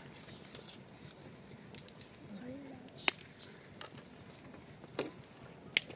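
Sharp cracks of dry twigs at a small open wood fire, over a faint outdoor background. The loudest crack comes about three seconds in and another near the end, with a few fainter ticks.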